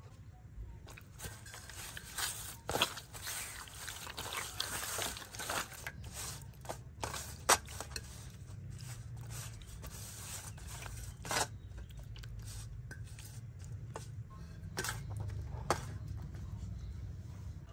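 Scattered clicks and short scrapes of food and a utensil being handled on a metal tray, one sharp click standing out about halfway through, over a low steady hum.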